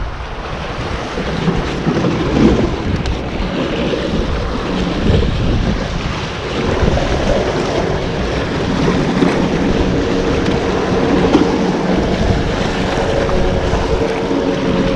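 Sea waves washing and breaking over the rocks of a breakwater, with wind buffeting the microphone. A steady low hum comes in near the end.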